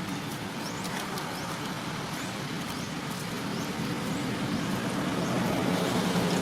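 A motor vehicle's engine running with a steady low drone that grows louder toward the end, as if coming closer. Faint short high chirps sound over it.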